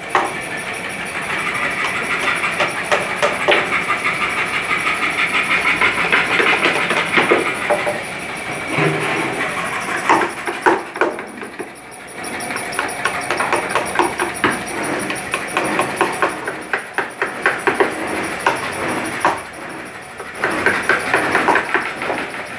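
Woodworking shop noise from tools working a carved wooden panel: a dense run of rapid scraping and tapping strokes over a steady high hum, easing off briefly twice.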